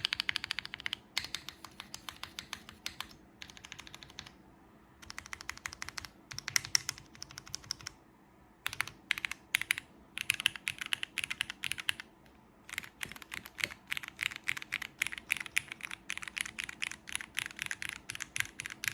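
Fast typing on a mechanical keyboard with lubed Cherry MX Black linear switches, GMK keycaps, a polycarbonate plate and plate foam: dense runs of keystrokes in bursts, with short pauses about four, eight and twelve seconds in.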